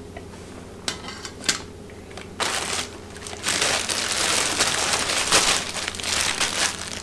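Two light clicks, then plastic packaging bags crinkling and rustling loudly as they are handled, starting about two and a half seconds in.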